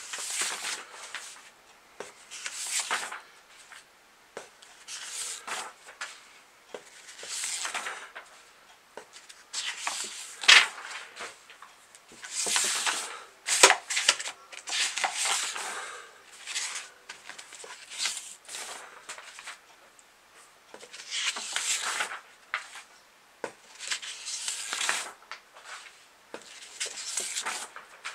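Large paper pages being turned one after another: a series of short, irregularly spaced rustles of paper sliding and flapping, with two sharper paper snaps near the middle.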